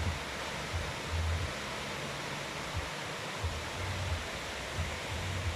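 River water rushing steadily, with irregular low rumbles under it.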